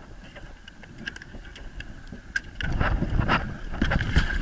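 Rumbling, rustling noise of the action camera being jostled, with wind on its microphone. It grows much louder about two and a half seconds in and carries scattered clicks and knocks over a faint steady high whine.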